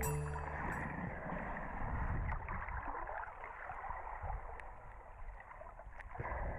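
River water flowing and gurgling, a steady rushing noise.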